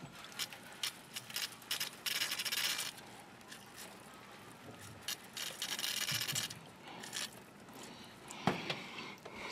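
Aerosol insecticide can spraying in two hissing bursts of about a second each, the first about two seconds in and the second near the middle. Short clicks come before the first burst, and there is a single knock near the end.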